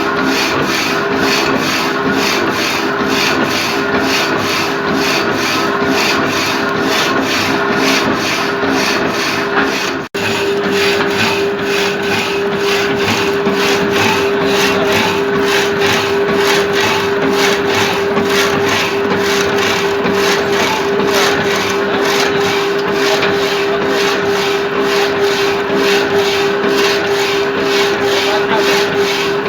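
Hydraulic reciprocating saw cutting: a steady rasping saw noise with a constant whine underneath. The sound drops out for an instant about ten seconds in, and the whine is stronger afterward.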